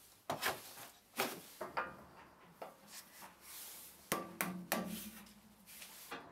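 A small hand plane shaving wood in quick, short strokes, then a few knocks with a brief ringing note as a thin wooden insert is pressed and tapped into a cast-iron bandsaw table about four seconds in.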